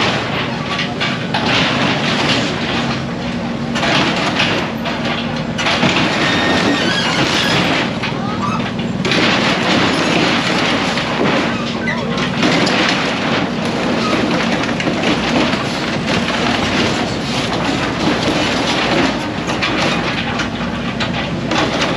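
Demolition noise: continual metal clanking, knocking and scraping over a steady engine hum that comes and goes.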